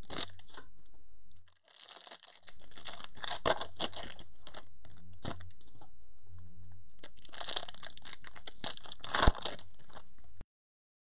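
Foil wrappers of Topps Chrome trading-card packs crinkling and tearing as the packs are handled and ripped open, with a loud sharp snap about nine seconds in. The sound cuts off suddenly near the end.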